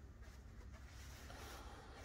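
Faint, even ticking of a Warmink Friese tailed wall clock's pendulum movement, with a soft rushing noise in the second half.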